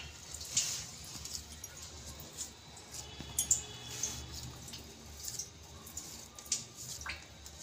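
Faint hand-handling of stiff dough being pinched off and pressed into small balls over a steel plate: soft squishing with scattered light clicks.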